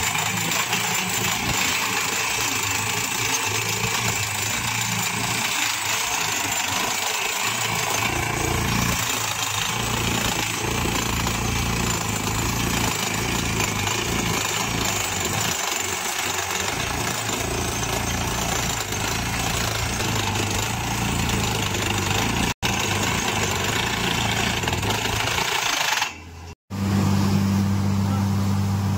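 Borewell drilling rig running loud and steady as it drills into the ground, a continuous rattling machine noise. Near the end the noise cuts out briefly and comes back as a steadier engine hum with a strong low tone.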